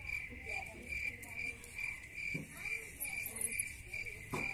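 A cricket chirping steadily, about two and a half chirps a second at one high pitch, with a short soft thump near the end.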